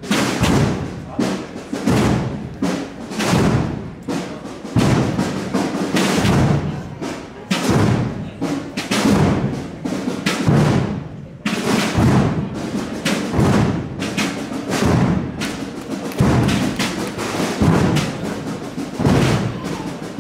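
Processional drum band beating a steady march, with heavy strokes about once a second and lighter beats between them.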